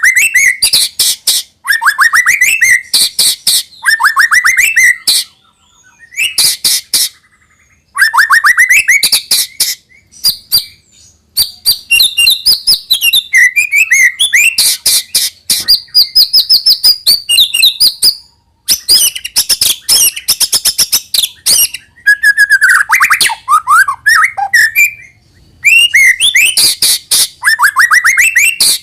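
White-rumped shama singing loudly: fast runs of sharp repeated notes and rising whistled phrases, in bursts with short pauses between them.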